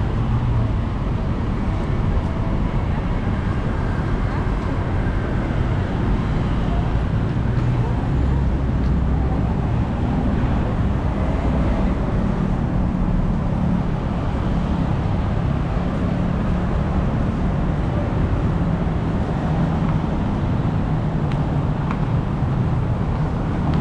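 Steady road-traffic noise from passing cars and buses, with indistinct voices of people around.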